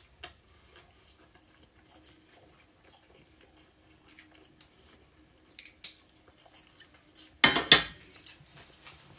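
Chopsticks and tableware on a plate: a few light clicks, then a louder, brief clatter about seven and a half seconds in.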